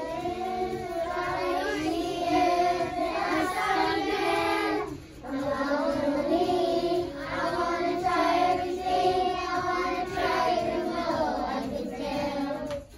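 A group of young children singing together in phrases, with a short break about five seconds in; the singing stops abruptly near the end.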